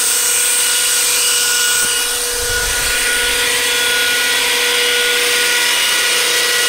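A 2x72 belt grinder running steadily, its three-phase motor on a variable-frequency drive giving a steady whine over the hiss of the moving belt, with a brief low rumble about two and a half seconds in.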